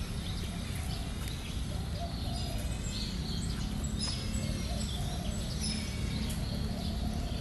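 Steady low background noise with faint, scattered bird chirps.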